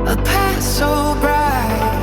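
Background music: a song with a sung vocal line over a steady electronic backing with held bass notes.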